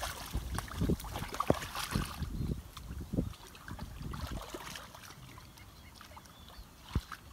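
Hands and bodies sloshing through shallow muddy water while groping for fish: irregular splashes that thin out in the second half, with a short knock near the end.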